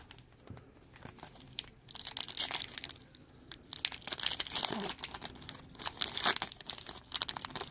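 Foil wrapper of a Topps baseball card pack being torn open and crinkled, in repeated bursts of crackling that begin about two seconds in.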